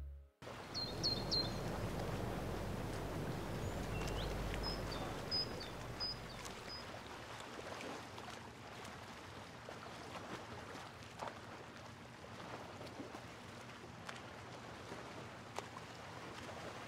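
Outdoor ambience: a steady faint rushing with a few short bird chirps in the first several seconds, and scattered light clicks throughout.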